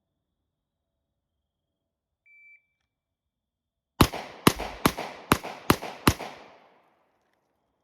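A shot timer's start beep, then about a second and a half later a pistol fires six fast shots roughly 0.4 s apart in a bill drill, each crack trailing off into echo.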